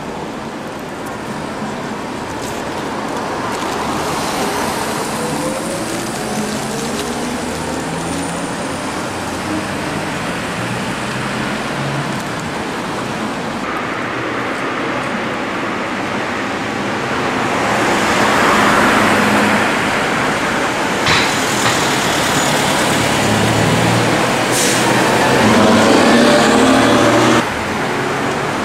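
Engines of vintage buses running among street traffic, growing louder as vehicles pass close. The sound drops off abruptly near the end.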